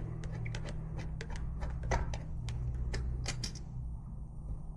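Screws being backed out of the center console brackets with a screwdriver: a string of irregular light clicks and taps, over a steady low hum.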